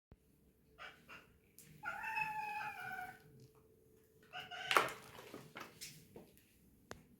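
A cat meowing: one drawn-out meow about two seconds in, then a shorter call a couple of seconds later, with a few light knocks in between.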